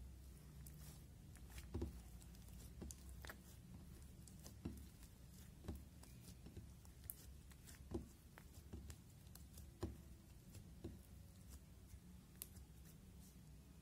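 Clear cloud slime being stretched, poked and pressed by hand on a glass plate, giving faint, scattered soft pops and crackles about once a second over a low hum.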